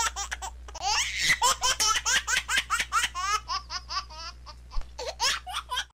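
A young child laughing hard, in a long run of short, quick laughs.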